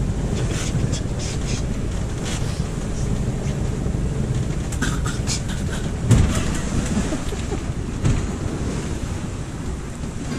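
Wind buffeting the microphone over the rush of water along the hull of a sailboat heeling under sail. A single knock about six seconds in.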